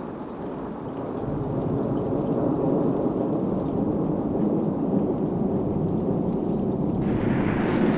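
A deep, rain-like rushing and rumbling noise effect that swells up over the first two seconds, holds steady, and turns brighter and hissier about seven seconds in.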